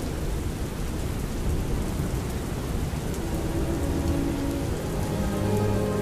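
Steady heavy rain with a low rumble of thunder. Faint orchestral music with held notes comes in underneath about three seconds in.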